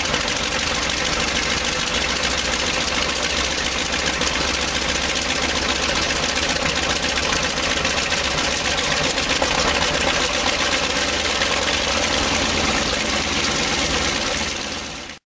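Douglas DC-3's radial piston engine running steadily at idle after start-up, still puffing exhaust smoke. The sound cuts off abruptly near the end.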